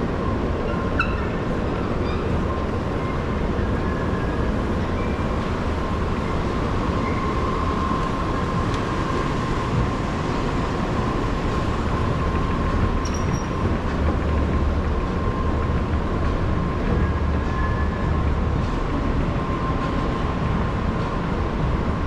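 Escalator running, a steady mechanical rumble with a constant hum riding over it.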